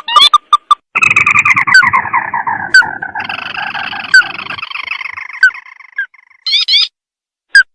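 Recorded crake (burung tikusan) call played as a bird-trapping lure. A long, fast trill falls in pitch for about six seconds, starting about a second in. Sharp rising chirp notes repeat before it and again near the end.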